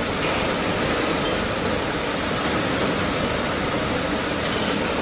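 Lathe running under a hydraulic copy-turning attachment, the tool cutting a metal workpiece in the spinning chuck: a steady, even machining noise.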